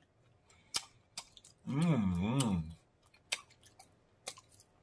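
Close-miked eating sounds: chewing with several sharp, crisp mouth clicks, and a hummed two-note "mmm" of enjoyment about two seconds in.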